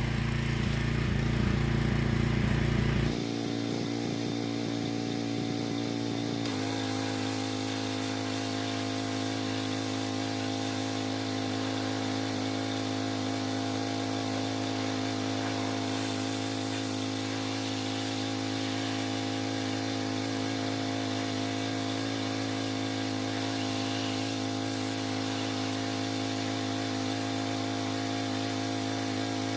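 Gas pressure washer's small engine running steadily under load, its pitch shifting about three seconds in and again about six seconds in, then holding steady.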